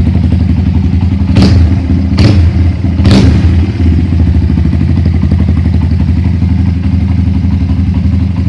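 Rusi Mojo 200 motorcycle engine idling steadily through its aftermarket muffler, with three short, loud bursts about a second apart between one and three seconds in.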